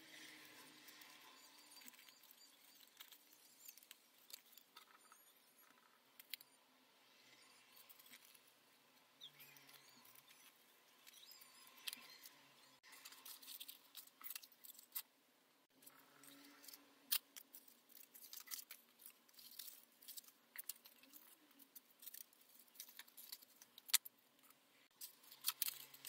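Faint rustling and crisp little crackles of copy-paper parts being handled, folded and pressed together, the crackles coming thicker and sharper through the second half.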